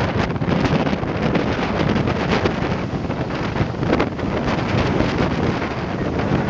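Strong hurricane wind gusting and buffeting the microphone, over the steady noise of heavy storm surf breaking on the beach.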